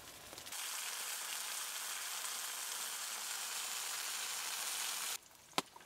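Russula mushrooms sizzling steadily in oil and water in a steel pan over a campfire, the water cooking off. The sizzle stops abruptly near the end, followed by a single sharp snap.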